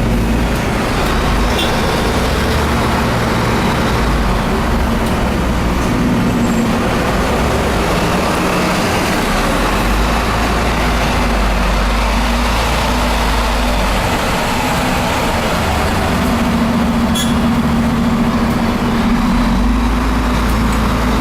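Volvo B12M bus diesel engine running steadily, its deep rumble swelling and easing in stretches, over a constant rushing road noise.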